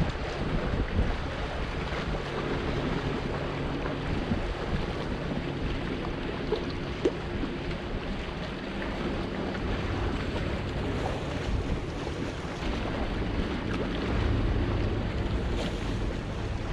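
Wind buffeting the microphone over small waves washing against shoreline boulders, with a faint steady low hum underneath.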